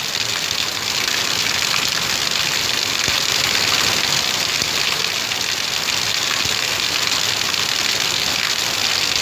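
Heavy rain pouring down as a loud, steady hiss.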